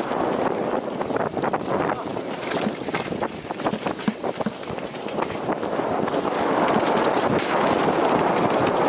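Mountain bike descending a dirt forest trail: tyres rolling over the dirt and the bike rattling, with frequent sharp clacks. Wind rushes over the helmet camera's microphone, growing louder and steadier from about six seconds in.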